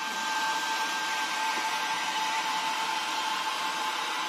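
Hair dryer running steadily over freshly dyed paper tiles to dry them: a steady rush of air with a constant whine.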